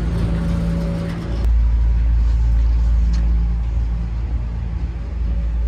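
Steady low mechanical rumble with a constant hum, the machinery noise heard while boarding an airliner. About a second and a half in, the rumble becomes louder and deeper.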